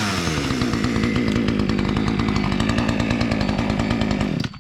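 Two-stroke petrol chainsaw, just started from cold, easing down from a rev to a steady idle, then cut off suddenly near the end.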